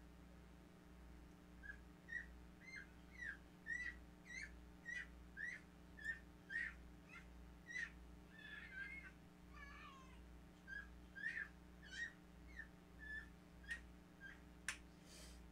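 A small animal's short, high calls repeated about twice a second, each a quick hooked chirp, over a faint steady room hum. A single sharp click comes near the end.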